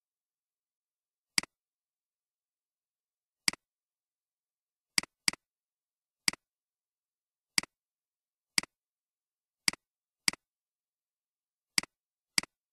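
Computer mouse clicks, about eleven at irregular intervals, each a sharp click with a softer tick just after it, with silence between.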